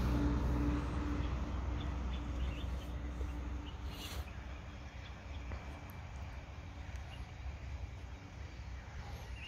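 Outdoor background with a low, steady motor hum that fades away over the first several seconds, and a few faint, short high chirps.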